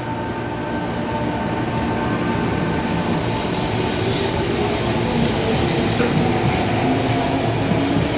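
A Sanyo Electric Railway electric train approaches along the line, its wheel-on-rail noise and motor hum growing louder over the first few seconds, then holding steady.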